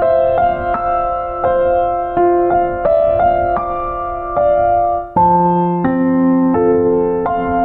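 Background music: soft electric piano or keyboard playing slow sustained chords, with a short break about five seconds in before a lower chord comes in.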